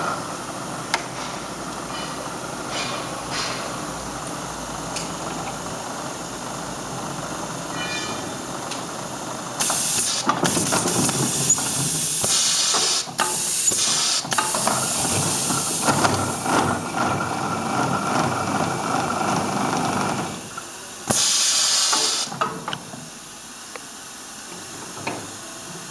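Industrial polishing machine running through a working cycle: a steady mechanical running noise with several loud hissing bursts, the first about ten seconds in and more through the middle. The running noise drops away about twenty seconds in, followed by one more strong hiss.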